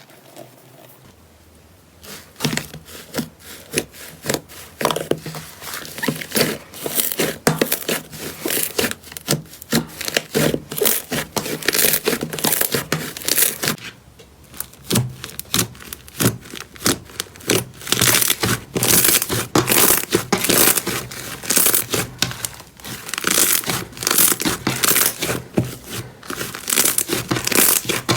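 Slime squeezed and worked by hand, giving dense crackling and popping of trapped air bubbles. It starts after a quiet first two seconds and pauses briefly about halfway.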